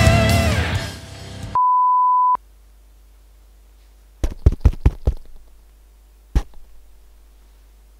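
Rock music with electric guitar fading out, then a single steady electronic beep lasting under a second. Later come a quick run of five or six clicks or knocks and, a second or so after, one more.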